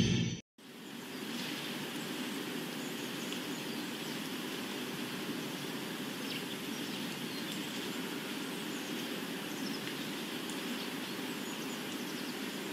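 A music sting fades and cuts off about half a second in. Then a steady outdoor ambience sets in: an even noise with faint, scattered bird chirps.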